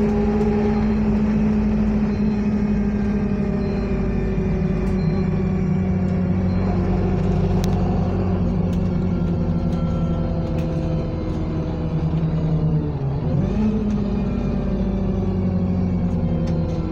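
Bus engine and drivetrain heard from inside the passenger saloon while the bus is moving. The engine note slowly falls, dips and picks up again about 13 seconds in, then falls again, with a few faint rattling clicks.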